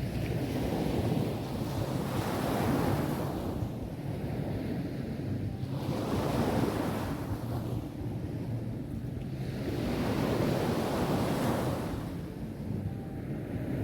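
Sea surf breaking and washing up a beach, three waves swelling and ebbing in turn. A steady low wind rumble on the microphone runs underneath.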